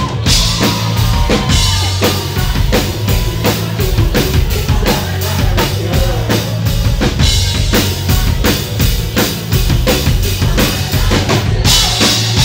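Rock band playing: a drum kit drives a fast, even beat of bass-drum and snare hits over a steady bass line and electric guitar.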